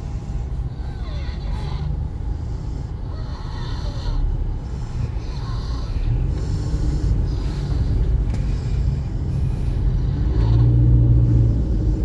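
Steady low rumble of engine and road noise inside a car's cabin as it creeps along in heavy traffic.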